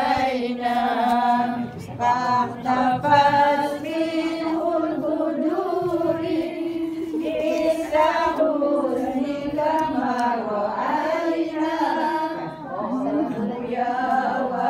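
A group of voices chanting an Islamic selawat in praise of the Prophet together, in long drawn-out sung notes.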